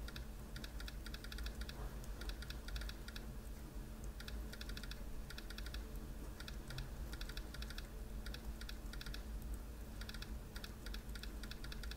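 Laptop keyboard keys being struck in fast touch-typing: quick runs of light key clicks broken by short pauses.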